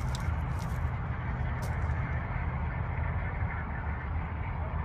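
Wind buffeting an outdoor microphone: a steady low rumble, with a single sharp click about a second and a half in.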